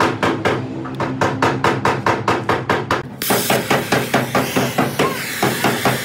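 Quick, even metal tapping, about four strikes a second. About three seconds in, the steady hiss of a gas torch flame starts up and the tapping carries on under it.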